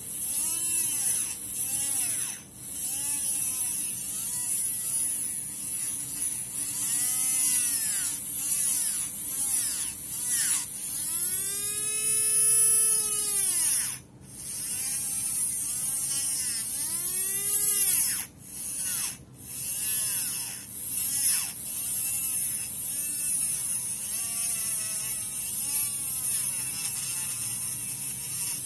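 Small Hyper Dash motor in a break-in driver spinning a Mini 4WD propeller-shaft gear while a file is pressed against it, trimming the gear down. The motor's whine swells and sags over and over under a rasping grind, with a couple of brief drop-outs.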